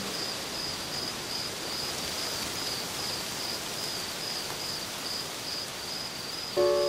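Evening outdoor ambience: a cricket chirping at a high, even pitch, about three chirps a second, over a steady soft hiss. Music starts again near the end.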